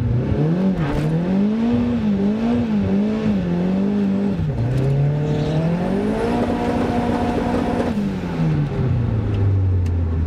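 Opel Ascona C's four-cylinder engine heard from inside the cabin, being revved: the revs rise about half a second in, waver up and down for a few seconds, dip, then climb and are held steady for about two seconds before falling back to idle near the end.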